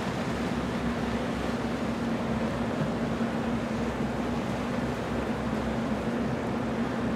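Cigarette Racing speedboat's engines running at low speed, a steady drone with a constant hum.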